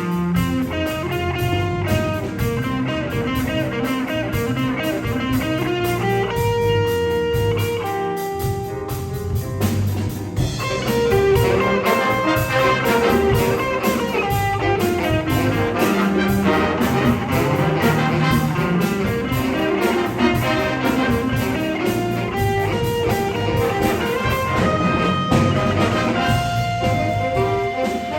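A school jazz band playing an up-tempo jazz chart. About ten seconds in it briefly thins out, then comes back in fuller and louder. Near the end the band settles onto a long held note.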